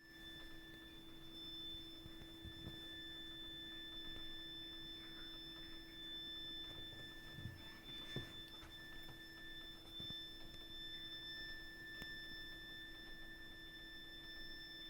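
Heat interface unit and heating pipework giving off a continuous, shrill, high-pitched whistle made of several steady tones sounding at once, with a few faint knocks. It is an abnormal plumbing noise, a fault in the heating system.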